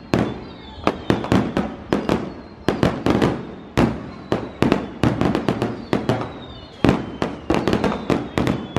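Fireworks bursting in a rapid, irregular string of loud bangs, about three a second, with a faint high whistle now and then between them.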